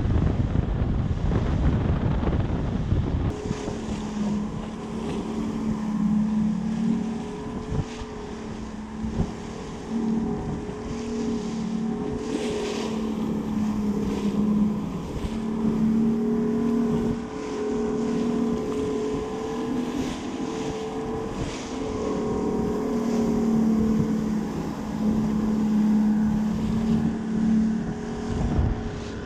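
A 200 HP Mercury Saltwater Series outboard running steadily at trolling speed with a low, even hum. Wind hits the microphone and water rushes along the hull, and the wind rumble is heaviest in the first few seconds.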